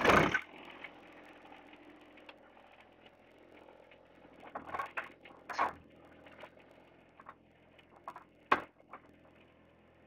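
A brief loud clatter at the very start, then a faint steady background hum with a handful of sharp knocks and clicks, the loudest about eight and a half seconds in.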